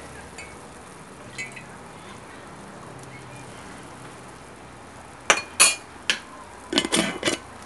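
A pot of soup boiling steadily as a metal ladle is stirred through it. In the last couple of seconds the ladle clinks sharply against the stainless steel pot several times.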